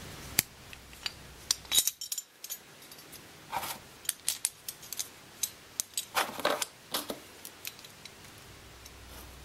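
Irregular small clicks and taps of plastic inserts, a steel bolt and a nut being handled and fitted together by hand into a car door check, with two brief scraping sounds partway through.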